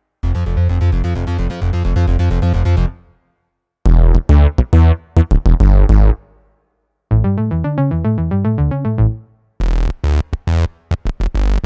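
Synth bass patches of a Roland FA-06/FA-08 workstation keyboard played in four short, fast riffs with brief pauses between them. The tone changes from riff to riff, each riff a different bass patch.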